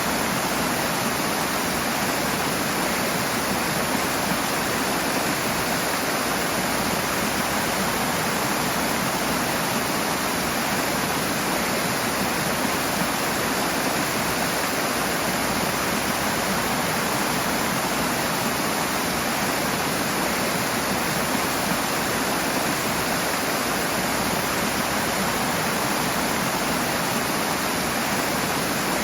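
Rushing water, a steady, even rush with no change.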